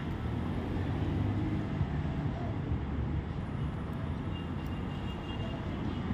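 Steady low background rumble with no distinct knocks or clicks.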